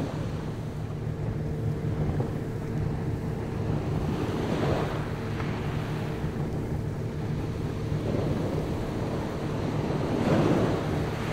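Boat engine running at a steady hum, with wind on the microphone and rushing water that swells twice, about four and ten seconds in.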